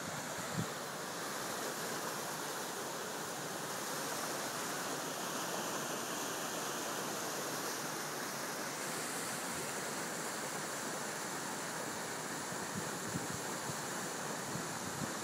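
Steady rush of the River Dee flowing through a snowbound rocky gorge, with now and then a soft low bump of wind on the microphone.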